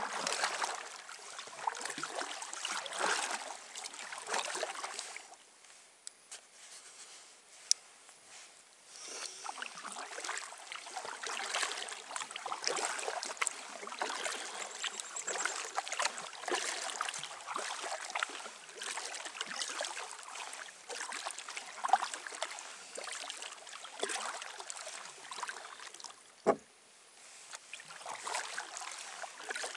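Kayak paddle strokes: the blades splashing and water dripping and trickling, with a lull of a few seconds near the start. A few sharp knocks stand out, the last a low thump.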